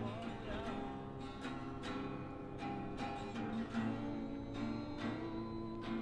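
Street busker strumming chords on an acoustic guitar, about two strums a second.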